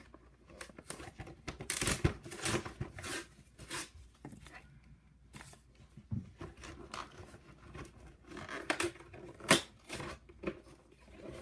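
Glued cardboard of a trading-card collection box tearing and crinkling as it is pried and ripped open, in irregular spurts with a sharp snap about nine and a half seconds in.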